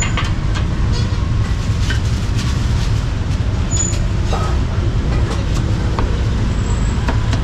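Steady low rumble of street traffic, with scattered sharp knocks of a cleaver striking a wooden chopping block.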